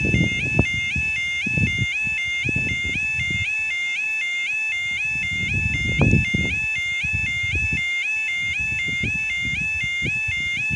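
Railway level crossing's audible warning alarm, the electronic 'yodel' warble, repeating its rising-and-falling tones quickly and steadily. It signals that the barriers are down and a train is due. Wind buffets the microphone in low gusts, the strongest about halfway through.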